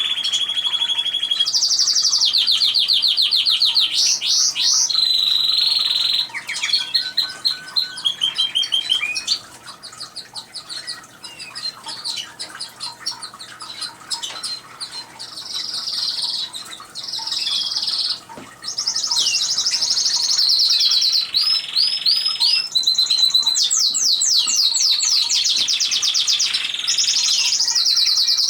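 Canaries singing: long songs made of fast repeated trills and rolls, each phrase held for a second or two before switching to another. The song drops to softer, scattered chirps for several seconds in the middle, then picks up again loudly.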